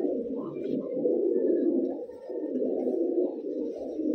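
Fancy pigeons cooing, with many coos overlapping into a continuous sound. It eases off briefly about two seconds in.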